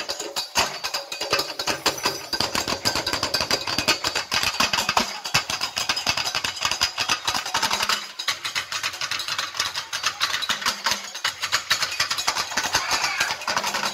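Drums played fast and densely, many strokes a second without a break; the deeper drum tones drop out about eight seconds in.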